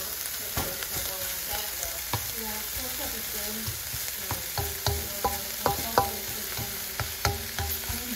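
Shrimp, pork belly and sliced onion sizzling as they are stir-fried in a nonstick frying pan, with a utensil knocking and scraping against the pan. The knocks come irregularly and grow more frequent and louder about halfway through.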